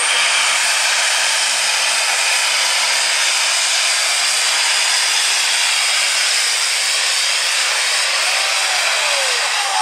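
Heavy super stock pulling tractor's turbocharged engine running at full throttle under load as it drags the sled down the track. It makes a dense, steady noise with a high, steady turbo whine, and the engine note sags slightly near the end.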